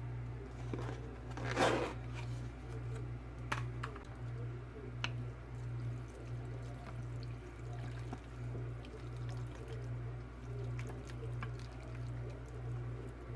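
Soft liquid sounds and small clicks from a bowl of pho broth, with one louder splash or scrape about a second and a half in, over a low hum that pulses about twice a second.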